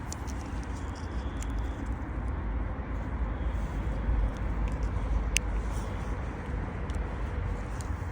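Steady low background rumble with a few faint, sharp clicks scattered through it, the clearest about five seconds in.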